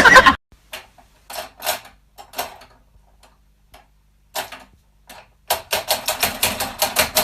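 A series of sharp taps or clicks, scattered at first, then a quick rapid run of taps near the end. Loud music cuts off just after the start.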